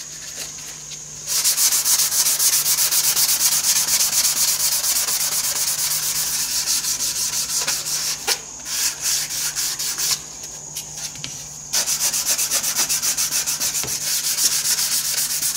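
Hand-rubbing a shellac-and-pumice-coated teak panel with a fine abrasive: quick, steady back-and-forth scratchy strokes, knocking down the set shellac before more coats. The rubbing starts about a second in, pauses briefly after about ten seconds, then resumes.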